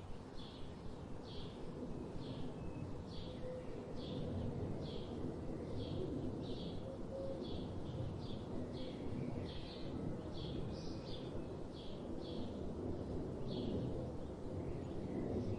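A bird repeating a short, high chirp about once a second, over a steady low background rumble.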